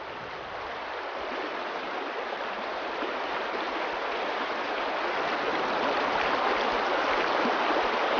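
River water rushing over a stony bed in the spring thaw, past melting shore ice, as one steady rushing noise that slowly grows louder.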